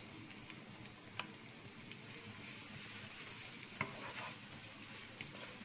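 Sliced onions frying in oil and ghee in a nonstick pan: a faint, steady sizzle, stirred with a wooden spatula that taps the pan about one second in and again near four seconds.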